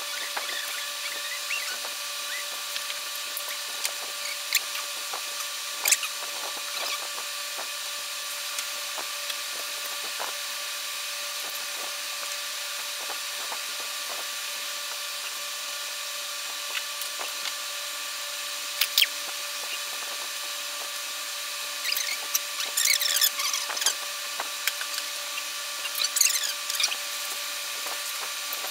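Pencil scratching along a straightedge on paper in short strokes, mostly near the end, with a few sharp clicks as the ruler and level are handled. Under it runs a steady hiss with a faint hum.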